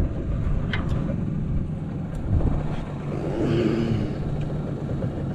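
Boat's outboard motor running steadily, a low continuous drone.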